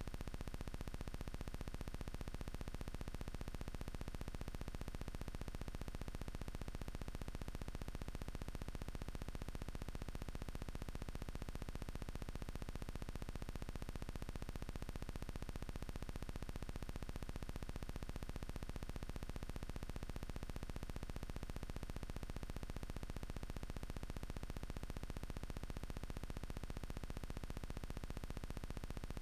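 Steady electronic hiss with a low hum underneath, unchanging throughout, with no gunshots. This is the recording's own noise floor rather than any sound from the field.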